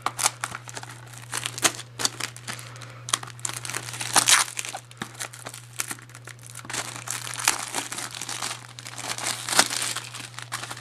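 Plastic shrink wrap on a Blu-ray case being torn and peeled off, crinkling irregularly, over a steady low hum.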